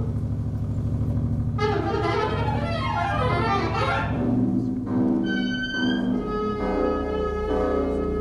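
Experimental music: a low pulsing drone with sliding pitched tones over it gives way, about halfway through, to held pitched notes, one of them high and sustained.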